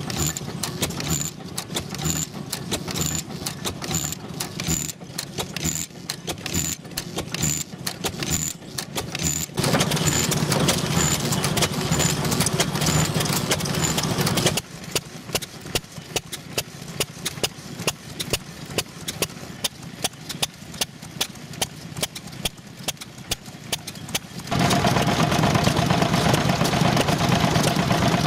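Old stationary farm engines running, one after another: a regular beat of exhaust puffs with metallic clatter from the valve gear. Near the end a louder, steadier run from a small engine.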